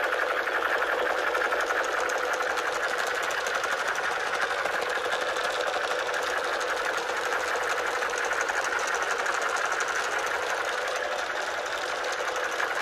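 Battery-powered light-up toy gun firing continuously: a steady, rapid rattling buzz.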